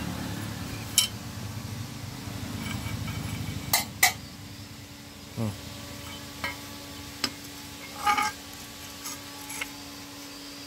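Scattered light metallic clinks and taps of steel tools and cutter parts being handled on the anvil, about eight at irregular intervals, over a low steady hum.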